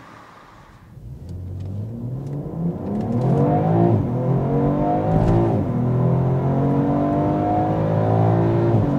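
Alpina B4 Gran Coupé's twin-turbo straight-six (the BMW M3 engine) accelerating hard under full throttle through the eight-speed ZF automatic in Sport Plus. It starts about a second in, climbs in pitch with each gear, and drops at the upshifts about halfway through and again near the end.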